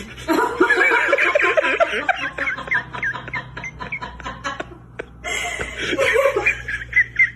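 People laughing hard in fits, high-pitched, with a brief pause about five seconds in.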